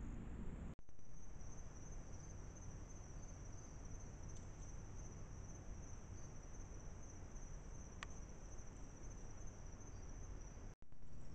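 Night insects such as crickets trilling steadily in one continuous high band over the trail camera's hiss, with a single sharp click about eight seconds in.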